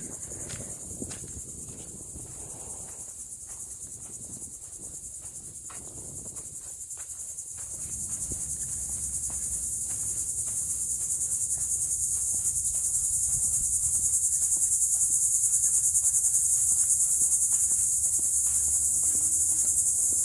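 A dense, steady, high-pitched chorus of insects such as cicadas or crickets, growing louder about halfway through.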